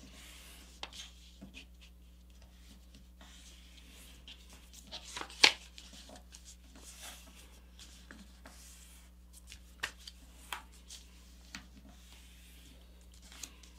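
A sheet of printer paper being folded and creased by hand: soft rustling and sliding with scattered short crackles and taps as the folds are pressed flat, the sharpest about five and a half seconds in.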